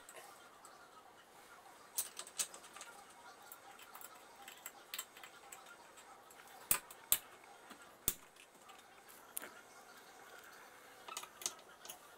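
Scattered small clicks and taps of hard plastic and metal parts being handled at a Kenmore Ultra Stitch 12 sewing machine's handwheel, with a sharp pair of clicks about seven seconds in.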